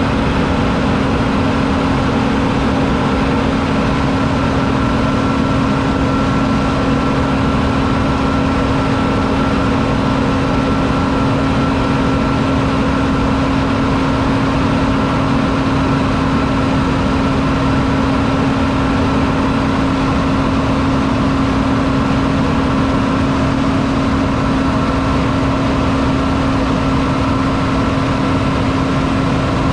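John Deere 9780i CTS combine harvester's 8.1-litre six-cylinder diesel engine running at a constant speed: a steady drone with a fainter high whine above it.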